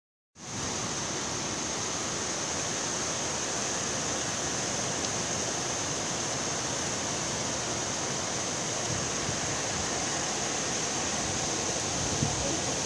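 Rain falling steadily, an even hiss of rainfall with no letup.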